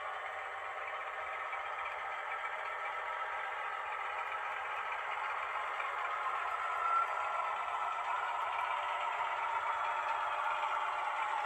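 H0 model train, a BR 106 diesel shunter model with passenger coaches, running slowly over the layout's track: a steady rattling whir of wheels and motor that grows gradually louder as it approaches.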